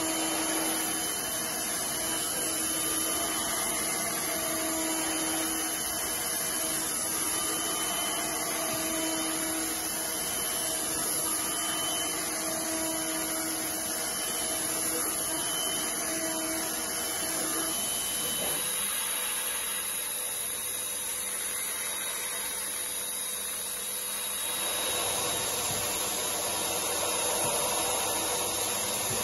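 CNC milling machine spindle running while end mills and a ballnose cutter mill model board, a steady cutting noise over a high whine. The sound changes abruptly about two-thirds of the way through and again near the end as the cut changes.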